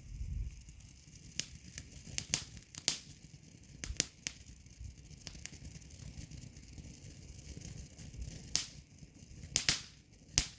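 Consumer firework going off, giving about a dozen sharp cracks at irregular intervals.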